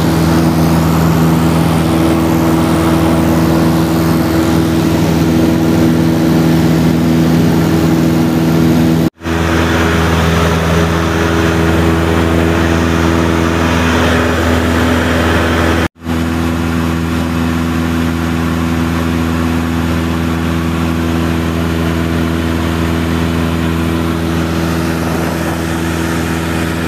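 Light airplane's engine and propeller droning steadily, heard from inside the small cabin in cruise flight. The sound drops out for an instant twice, about nine and sixteen seconds in.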